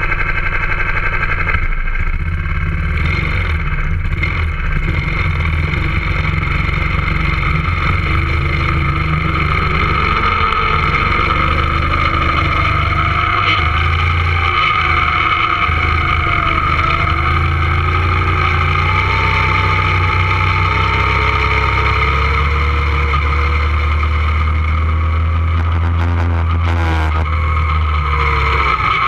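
Two-seater go-kart's engine running close up as the kart drives around the track, its pitch rising and falling with speed.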